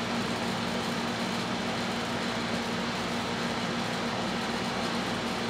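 Steady machine hum with an even hiss beneath it, unchanging throughout, with no distinct knocks or clicks.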